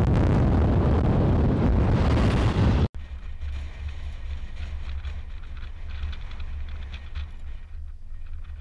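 Loud, steady rushing wind noise on the microphone cuts off abruptly about three seconds in. A much quieter low wind rumble follows.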